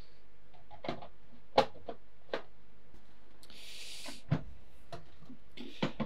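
Hard plastic clicks and knocks from a Polti Forzaspira C110 vacuum cleaner's lid, handle and body being handled and fitted together: a handful of separate taps, the sharpest about one and a half seconds in, with a brief hiss a little past halfway.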